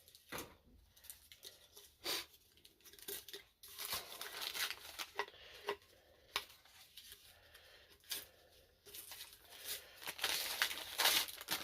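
Packing wrap being crinkled and torn off a soda can as it is unwrapped: irregular rustling and tearing, getting busier near the end.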